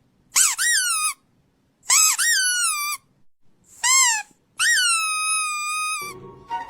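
Puppy whining: four high-pitched cries, each rising and then falling in pitch, the last held longer. Music starts near the end.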